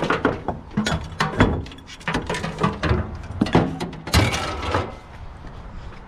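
Hard objects from a pile of discarded household junk knocking and clattering together as they are moved, in a burst of irregular knocks that dies down about five seconds in.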